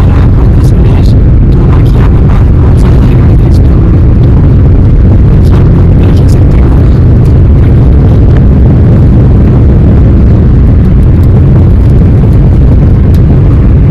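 Loud, steady low rumble of a moving car: road and wind noise on the microphone.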